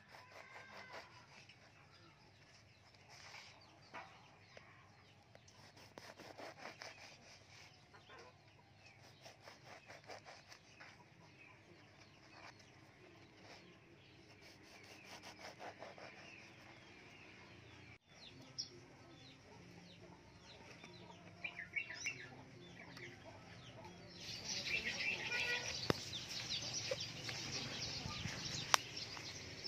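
Knife sawing through a crusty baguette on a wooden chopping board in repeated short strokes. In the last few seconds, chickens clucking come in louder, with a couple of sharp knocks.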